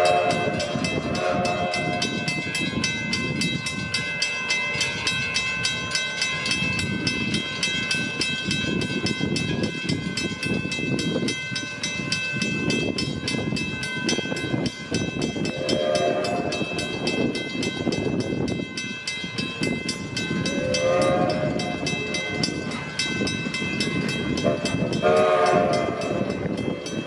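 Edison steam locomotive running, its whistle sounding several times: briefly at the start, then again about two-thirds of the way through and near the end.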